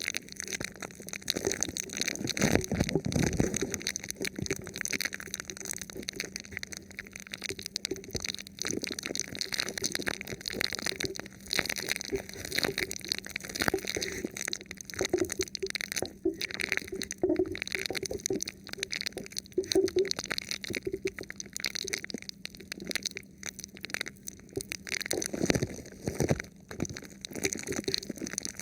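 Fingers rubbing and tapping on a thin plastic sheet stretched over a microphone: close, continuous crinkling and rustling full of small clicks. Heavier muffled thuds come about three seconds in and again near the end.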